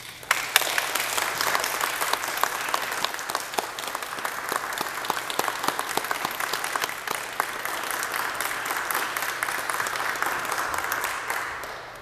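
Audience applauding; the clapping starts suddenly and dies away near the end.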